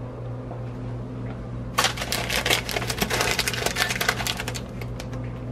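Plastic snack bags crinkling and rustling in a rapid run of crackles as they are pushed into a vending machine's spiral coils, over a steady low hum.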